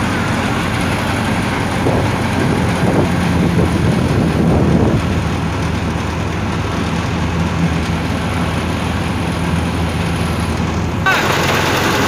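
Tractor engine idling steadily, with faint voices in the middle.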